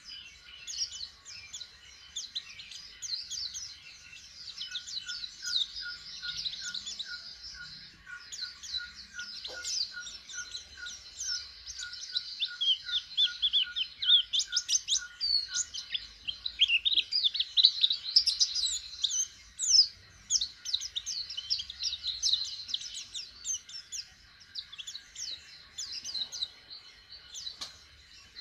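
Pleci (white-eye) singing a fast, continuous twittering song of high chirps, loudest about halfway through. It is a young bird just beginning to sing.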